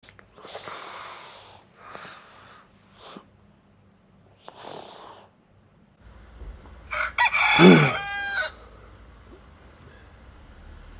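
Four short hissy sounds, then about seven seconds in a loud, drawn-out animal call with a pitched, wavering tone lasting about a second and a half.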